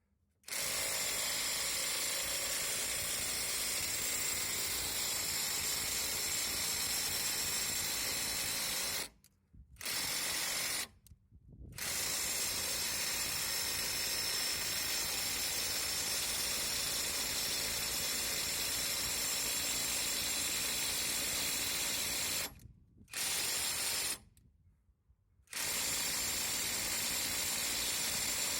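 AutoJare B1803 brushless half-inch cordless impact wrench hammering in long continuous runs. The sound cuts off sharply four times and starts again.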